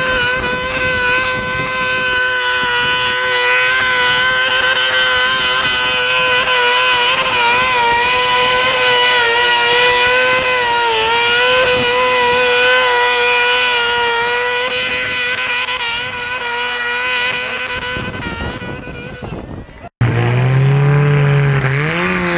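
A modified lawn tractor's engine runs at high revs and a steady, high pitch while pulling a weight sled. The pitch sags briefly about halfway through, and the sound fades near the end. After a cut, a lower-pitched tractor engine revs up and back down.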